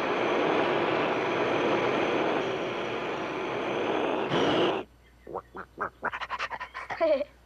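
Cartoon dragon's fire-breath sound effect: a steady rushing roar of flame for about five seconds, flaring briefly before it cuts off. Then a quick run of short vocal noises from the dragon, ending in a falling call.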